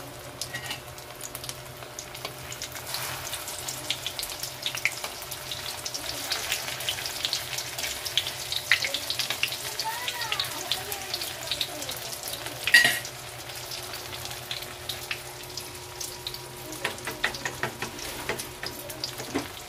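Spring rolls frying in hot oil in a wok, with a steady crackling sizzle that is busiest in the middle. About thirteen seconds in comes one sharp clack, the loudest sound, as tongs work the rolls.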